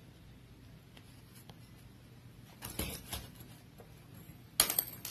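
Metal keychains and their split rings handled on a desk: a few faint clicks around the middle, then a sharper, louder clatter of clicks near the end.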